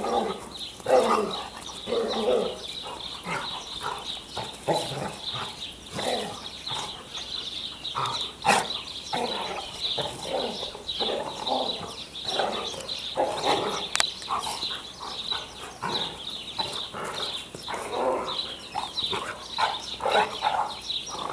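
A dog barking repeatedly in short irregular bursts.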